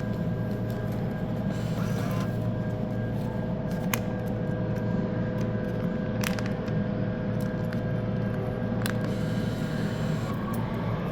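Steady hum of a refrigerated drinks vending machine, with three short sharp clicks spread through it.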